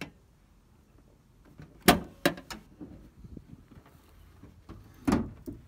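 Pickup truck hood being opened by hand: a loud metal clunk about two seconds in as the latch lets go, two smaller knocks, then another clunk a little after five seconds as the hood goes up.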